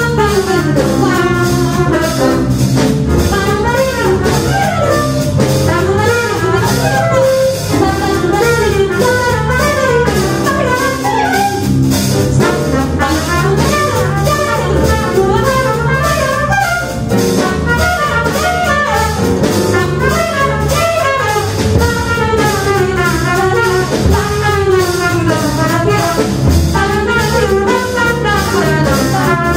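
Small jazz combo playing, with a trumpet line over grand piano, double bass and drum kit.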